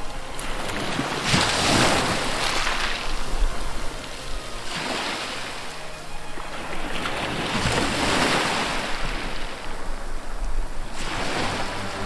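Wind and sea wash on open water: a rushing noise that swells and fades about every three seconds.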